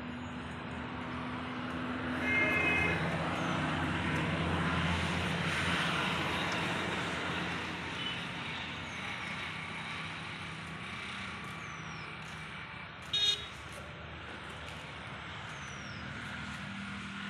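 A motor vehicle passing, its noise swelling over a few seconds and then fading. A short horn toot sounds early in the pass, and a brief, sharp, high beep comes a little past halfway.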